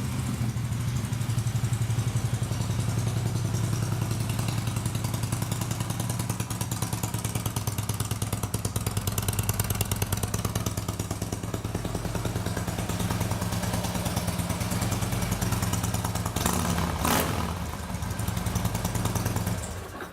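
Harley-Davidson fuel-injected 103-cubic-inch Twin Cam V-twin with Vance & Hines slip-on mufflers, running at idle with an even, loping exhaust pulse just after a start. There is a brief louder moment about three seconds before the end, and the engine is switched off at the very end.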